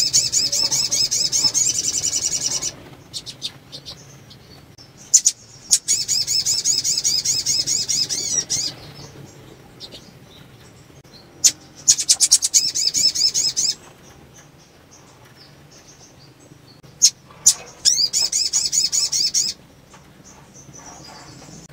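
Female sogok ontong (little spiderhunter) in breeding condition calling: four bursts of rapid, high warbling trills, each two to three seconds long, with sharp single chips in the pauses between them.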